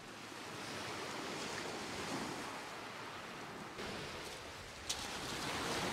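Sea waves washing onto a shingle beach: a steady hiss of surf that swells and eases slightly.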